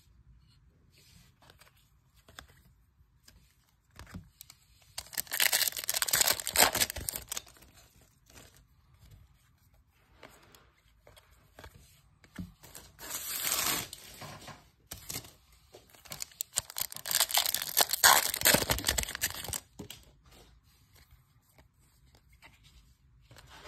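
2022 Topps Chrome trading card pack wrappers being crinkled and torn open, in three spells of a few seconds each, with light card handling between them.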